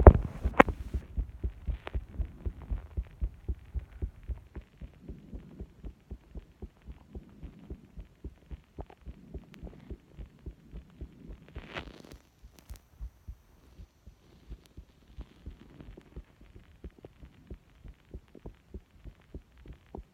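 A person's own heartbeat picked up from the chest: a steady, even rhythm of low thumps, louder over the first couple of seconds and then quieter. A few sharp knocks sound right at the start, and a brief rustling noise about twelve seconds in.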